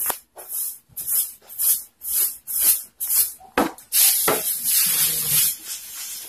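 Pasta dough being rolled out on a floured tabletop with a makeshift rolling pin: short swishing strokes, about two a second. A little past halfway there is a knock as something is set down on the table, then a longer rustling hiss as the dough sheet is handled and lifted.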